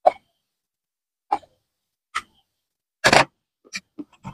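Dry baked clay from a clay pot crunching between the teeth: single crisp bites about a second apart, then a louder, longer crunch about three seconds in, followed by a few small chewing clicks.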